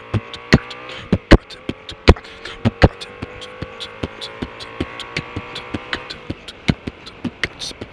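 Hyosung GT125 motorcycle's 125cc V-twin engine pulling, its pitch rising slowly for about six seconds and then easing off. Loud, irregular sharp clicks, a few a second, crackle over it throughout.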